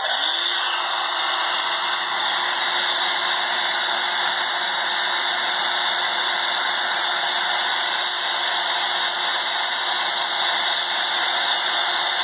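Conair hand-held hair dryer switched on, its motor spinning up in the first moment, then running steadily with a constant rush of air.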